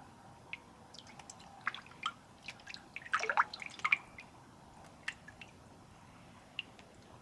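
Small water drips and splashes mixed with light ticks and taps, clustered in a short flurry around the middle.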